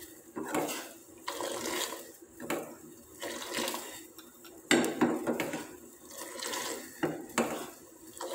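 Metal ladle stirring simmering spiced water in a steel saucepan, clinking against the pan with the liquid sloshing, in strokes about once a second.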